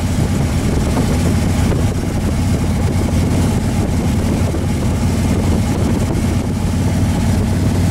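Vehicle engine running at a steady cruise, with a constant rush of wind and road noise, heard from aboard the moving vehicle.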